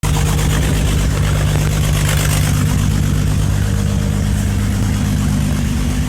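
A large engine running steadily at idle, with an even low hum and no revving.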